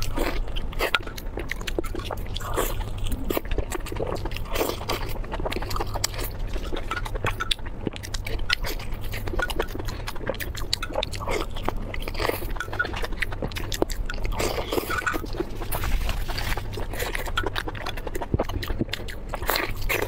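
Close-miked eating sounds: chewing and wet mouth smacking as soft, saucy stuffed food is bitten and torn apart, with dense, irregular little clicks throughout. A steady low hum lies underneath.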